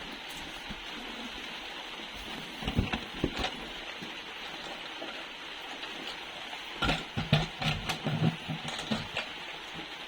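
Plastic toy vehicles and packaging being handled: scattered clicks and knocks in two clusters, one about three seconds in and a denser one from about seven to nine seconds, over a steady hiss.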